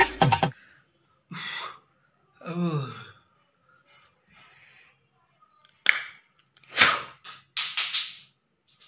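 Music stops abruptly half a second in. Then a man makes short, separate breathy vocal noises: a quick breath, a voiced sigh falling in pitch, and a cluster of sharp huffs and gasps in the last three seconds.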